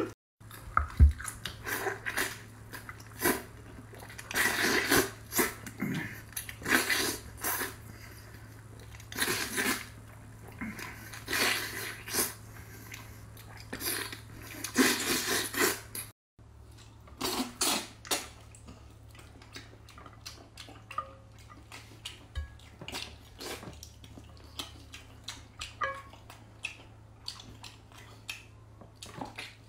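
Close-miked eating sounds: wet chewing, slurping and lip-smacking on soft, saucy braised pork and pig's trotter, in irregular bursts over a faint low hum. The sound drops out for a moment twice, near the start and about halfway through.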